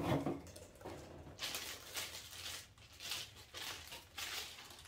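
Clear plastic packaging crinkling in short, irregular rustles as it is worked off a new golf wedge.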